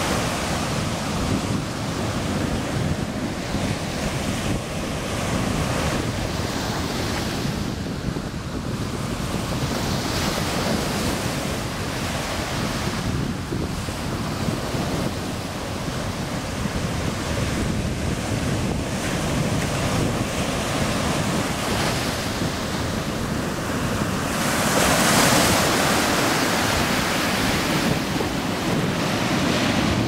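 Ocean surf breaking and washing up a sandy beach in a steady rush, with wind buffeting the microphone. A bigger wave washes in louder about three-quarters of the way through.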